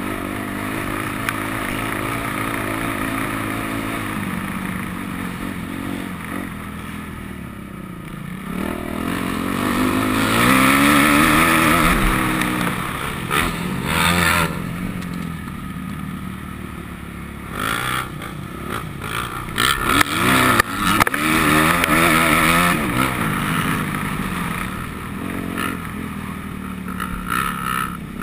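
Motocross bike engine heard from on board while riding, its revs rising and falling repeatedly through the throttle and gear changes, with several sharp knocks and rattles in the middle.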